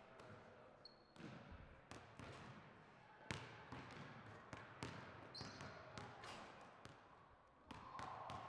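Basketballs bouncing on a hardwood gym floor: a string of irregularly spaced thumps, the loudest about three seconds in.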